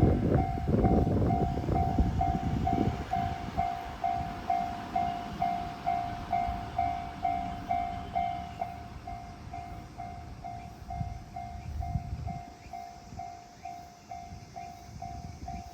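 Japanese railway level crossing warning alarm ringing a steady repeating tone, about two strikes a second. Under it, a train passes over the crossing, its wheel rumble loud at first and fading away over the first few seconds.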